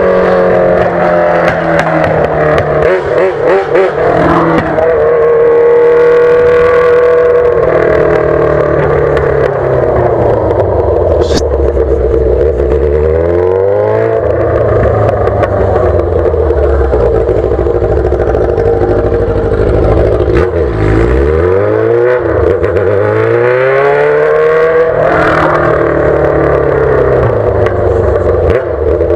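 Yamaha XJ6's 600 cc inline-four running through a straight-pipe exhaust with no muffler, ridden hard. It is loud, and its note climbs and drops again and again with the throttle and gear changes.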